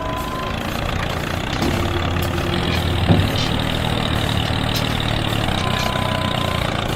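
An engine running steadily at idle, with a single knock about three seconds in.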